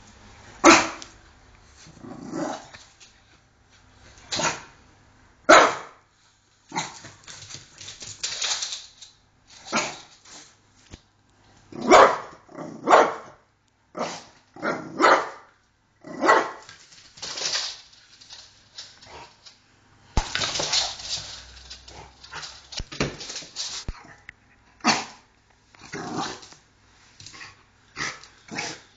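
French bulldog barking over and over in irregular bursts, some barks short and sharp, others more drawn out, with brief pauses between. It is barking out of fear at something.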